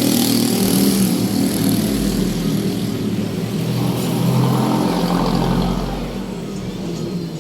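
A vehicle engine running steadily, easing off slightly near the end.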